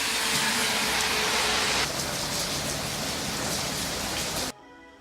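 A loud, steady rushing noise like heavy rain or static, which cuts off suddenly about four and a half seconds in; soft music with held notes follows.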